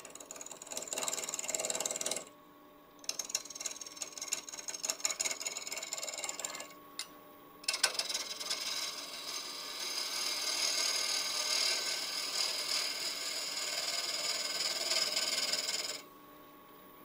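Spindle gouge cutting a spinning wood blank on a lathe to round it off, in three passes with short pauses between. The middle pass is choppy, the long last pass a steadier shearing hiss that stops about a second before the end.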